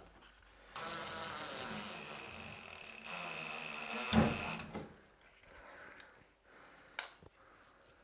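Cordless drill running for about four seconds as it drives a screw into a plastic lid through the ceiling, its motor whining higher in the second half of the run. There is a loud knock near the end of the run and a single sharp click a few seconds later.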